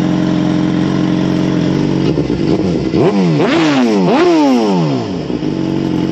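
Sport motorcycle engine with an aftermarket exhaust idling, then blipped through a few quick revs about halfway through before dropping back to idle.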